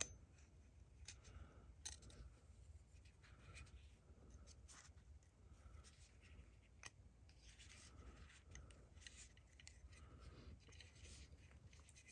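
Faint scattered clicks and rubbing of metal parts from a vintage PVC pipe cutter being handled with gloved hands while its spring is fitted back in.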